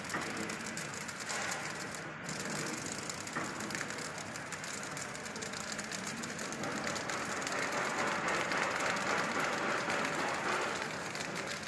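Automatic flow-wrap bun packing machine running: a steady mechanical clatter of conveyors and the wrapping mechanism with dense fine ticking, a little louder in the second half.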